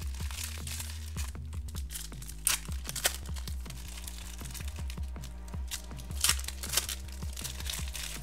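Foil trading-card pack wrappers crinkling and tearing, with cards clicking as they are flicked through a stack. A few sharp crinkles stand out around two and a half to three seconds in and again around six to seven seconds. Quiet background music plays underneath.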